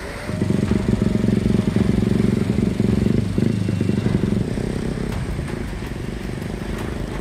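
An engine running close by, a steady low drone that starts abruptly a moment in and eases off a little after about four seconds.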